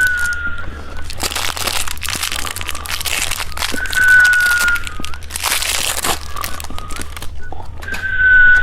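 Candy wrapper crinkling and candy being crunched and chewed, in two long rustling stretches. A short high whistle tone, falling slightly, sounds three times about four seconds apart.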